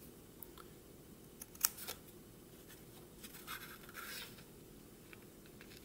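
Scissors cutting through thin coloured paper: a few faint, sharp snips between one and two seconds in, then softer rasping cuts around the four-second mark.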